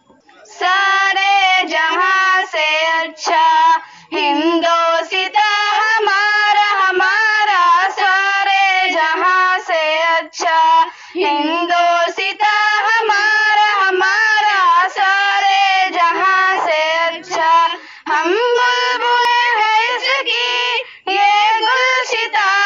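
A child singing a nazm in a high voice, phrase after phrase with short breaks for breath and no instruments heard.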